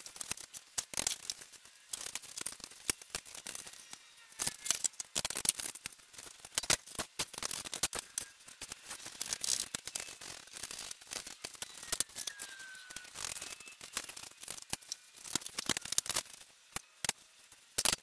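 Workshop handling noise: hand tools and parts clicking and knocking irregularly as front forks are fitted to a motorcycle.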